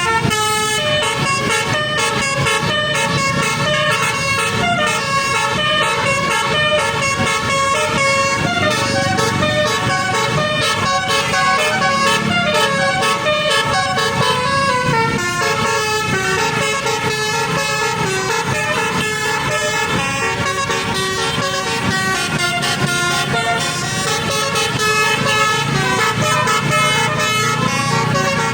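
A tour bus's Basuri telolet musical horn playing a melody: loud horn notes stepping up and down in a continuous tune.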